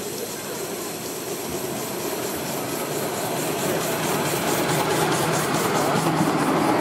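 7¼-inch gauge miniature steam locomotive and its loaded passenger carriages approaching and running past, growing steadily louder. From about four seconds in a fast, even ticking of wheels running close by comes through.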